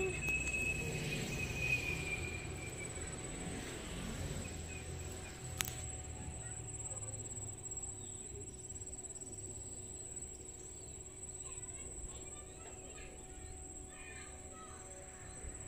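Outdoor background noise: a steady low rumble under a constant thin high tone. A falling tone sounds in the first few seconds, there is a single sharp click about five and a half seconds in, and faint short chirps come in the second half.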